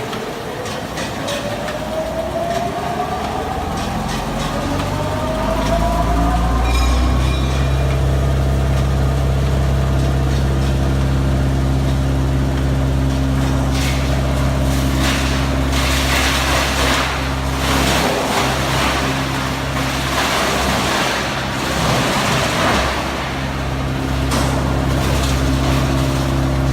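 Wood chipper machine spinning up with a rising whine over the first several seconds, then running at a steady hum. Rough, noisy spells come and go past the middle, and a sharp knock sounds near the end.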